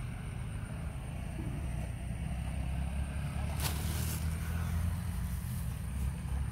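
Wind rumbling on the phone's microphone, with a brief crinkle of a thin plastic carry bag being grabbed about three and a half seconds in.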